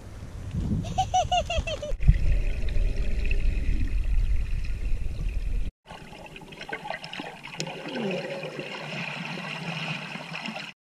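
Heavy wind rumble on an outdoor microphone with a brief voice. At a hard cut about six seconds in it changes to muffled underwater sound from a submerged camera while snorkeling: bubbling, gurgling water.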